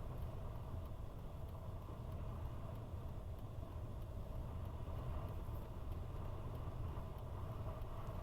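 Steady low rumble of a car idling while stopped, heard from inside the cabin.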